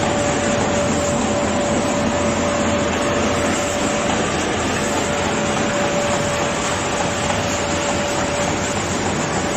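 Automatic carton box fold gluer running in production: a steady mechanical clatter of belts and rollers with a constant whine over it.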